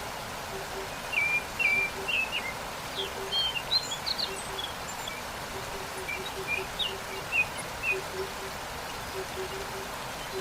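Steady rush of a waterfall, with small birds chirping in short, high calls scattered throughout and a low note repeating faintly in the background.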